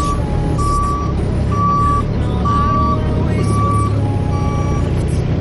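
JCB 403 Plus compact wheeled loader's reversing alarm beeping about once a second over the low rumble of diesel engines running; the beeps stop about four seconds in.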